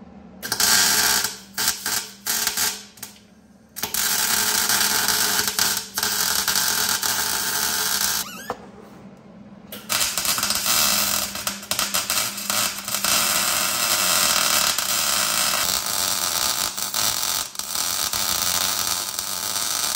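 Gas-shielded MIG welder arcing as brackets are welded onto a steel rear axle housing: a few short tack bursts, then a long bead, a short break, and another long steady run to the end.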